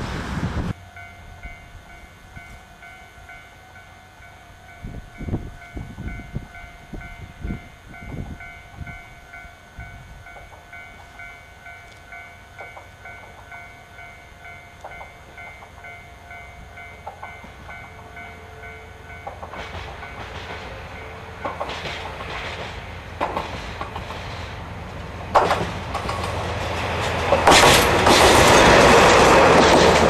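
A level-crossing warning bell rings steadily at first. Then a single diesel locomotive running light approaches, its engine and wheel noise growing. It passes close near the end, with sharp clacks of the wheels over rail joints.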